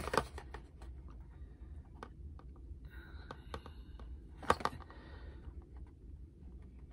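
A small cardboard product box handled in the fingers: scattered light clicks and taps, with a sharper click about four and a half seconds in, over a steady low hum and a faint murmur.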